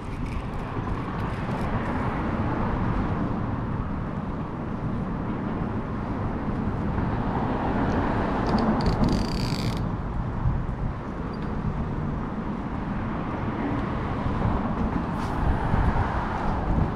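Wind buffeting the microphone, a low rumbling noise that rises and falls in gusts, with a brief hiss about nine seconds in.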